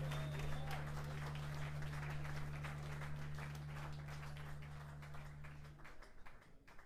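Audience applauding with many quick claps as a song ends, over a low held note from the stage that cuts off near the end; the clapping then thins out.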